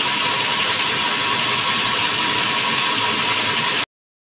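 Sawmill band saw running with no log in it: a steady mechanical whirr and rattle that cuts off abruptly near the end.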